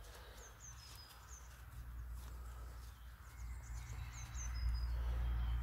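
Small birds chirping, short high falling calls repeated in pairs, over a low rumble that grows louder about halfway through, with a few faint ticks.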